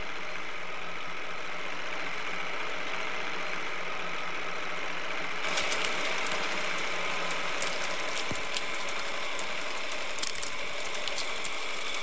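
Steady hiss with a faint low hum, as on an old archival film soundtrack; about five and a half seconds in the hiss brightens and irregular clicks and crackles set in.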